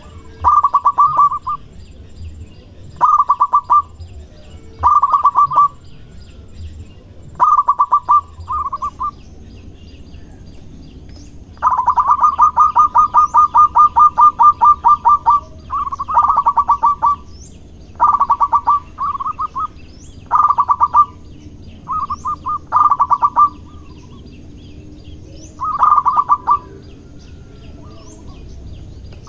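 Male zebra dove (perkutut) cooing: about ten phrases of rapid staccato notes, with one long unbroken run about twelve seconds in. A male's courting song.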